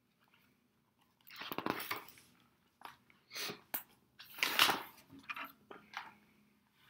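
Pages of a picture book being turned and handled close to the microphone: a series of paper rustles and swishes, the longest about a second in and again around four and a half seconds in.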